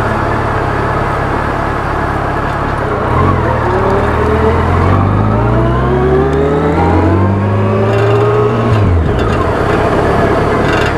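Yamaha FJR1300 motorcycle's inline-four engine accelerating, its pitch climbing steadily for about five seconds and then falling away abruptly, over constant wind and road noise.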